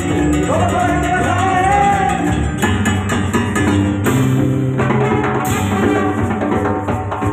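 Live Latin dance band playing: drum kit, congas, keyboard and a horn section over a steady dance rhythm.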